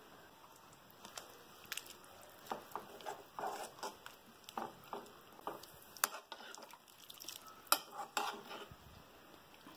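A spoon stirring thick onion theeyal curry in a metal pan: soft wet stirring with scattered sharp clinks and scrapes of the spoon against the pan.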